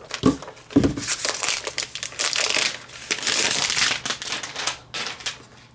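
Thin plastic protective film being peeled off a MacBook Pro's underside and crinkled, a dense crackling that runs for a few seconds and dies away near the end. A couple of dull handling knocks come in the first second.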